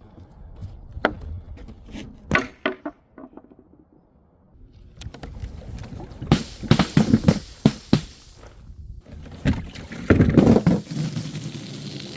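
Things being broken and crushed: repeated sharp cracks and crunches. There are single hits at about one and two and a half seconds in, then a dense run of impacts from about five to eight seconds, and another near ten seconds.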